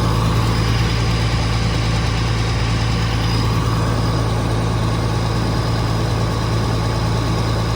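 Case IH combine's diesel engine running at a steady speed, a constant low hum with no rise or fall in pitch.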